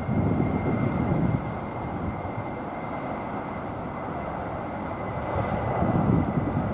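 Qantas Boeing 747's four jet engines running as it rolls down the runway on its takeoff run. It is a steady rumble with a high whine held on one pitch, growing louder near the end.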